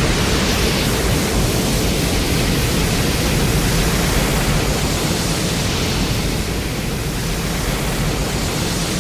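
Steady, loud rushing noise with a low rumble under a hiss, no pitch to it, from a kaiju sound effect. It holds even throughout.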